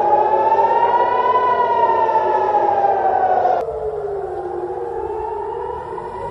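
A siren wailing, its pitch rising and falling slowly. About three and a half seconds in it cuts abruptly to a quieter, lower wail.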